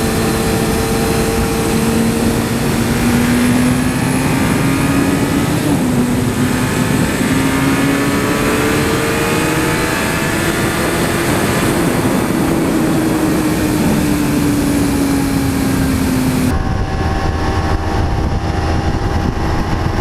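Sport motorcycle engine pulling steadily at high revs on the road over a loud rush of wind, its pitch climbing slowly and then easing off. Near the end the wind hiss falls away and the engine note drops lower.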